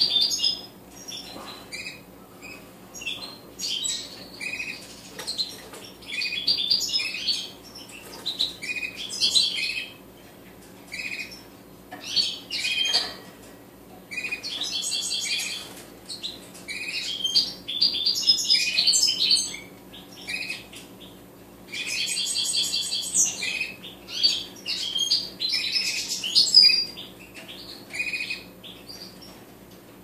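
Small cage finches chirping and twittering in short bursts every second or two, with a few longer buzzy trills.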